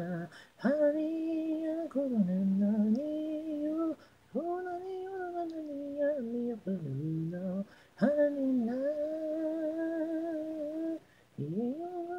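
Female voice singing unaccompanied, an a cappella vocal track: long held notes in four phrases of about three seconds each, with short gaps between them.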